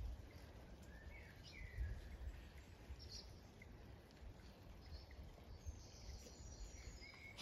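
Faint, scattered short bird chirps over quiet background noise with a low rumble on the microphone.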